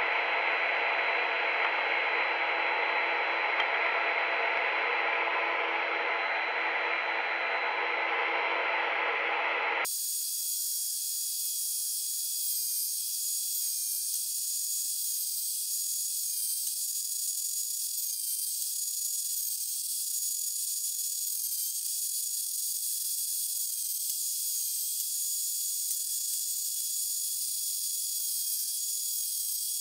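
Benchtop thickness planer running while beech boards are fed through it. About ten seconds in, the sound changes abruptly to a thin, high whine with several steady tones that dip briefly at regular intervals.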